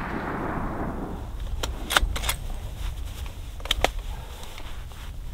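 The rolling echo of a rifle shot fades away over the first second or so, then a few sharp metallic clicks follow in two quick groups as the hunting rifle's action is worked to chamber the next round.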